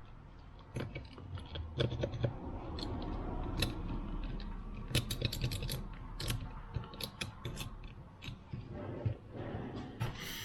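Irregular metal clicks, knocks and scraping from tools working on a pair of rusted steel hand pruning shears while they are being taken apart.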